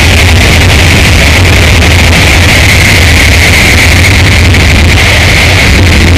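Harsh noise music: a dense, unbroken wall of distorted static at full loudness, with a steady low drone underneath and a harsh hiss band higher up, barely changing.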